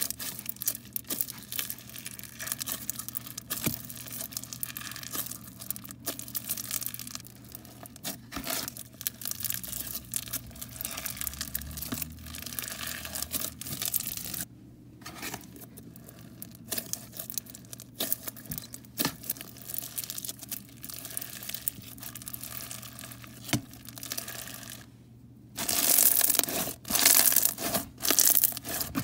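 Bead-filled slime, thick with iridescent tube-shaped beads, being stretched, pressed and squished by hand: a dense crackling and crunching of many small clicks. It pauses briefly twice, and the crunching is louder in the last few seconds.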